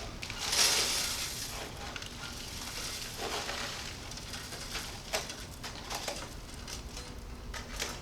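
Loose asphalt mix being scooped and poured into an ignition-furnace sample basket: a gritty pour of coated aggregate about half a second in, then scattered scrapes and clinks of the scoop against the metal basket.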